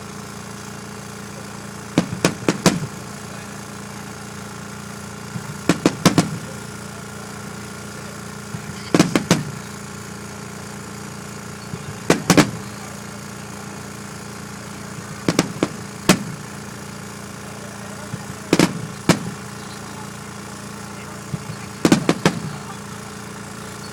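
Fireworks shells bursting: seven clusters of quick bangs, one cluster every three to four seconds, over a steady low hum.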